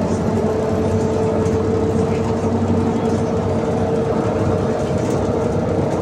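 BKM 321 trolleybus's electric traction drive whining at a steady pitch while cruising, over road and body running noise heard from inside the passenger cabin.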